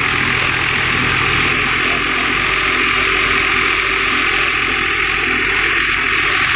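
Paddy thresher running steadily while threshing rice, a loud constant mechanical drone with a low hum under it.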